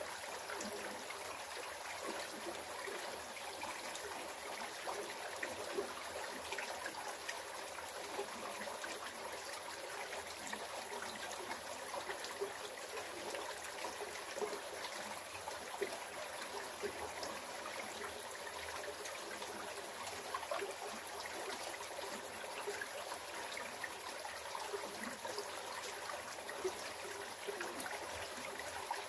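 Creek water trickling over rocks, a steady babble with small irregular splashes and ticks.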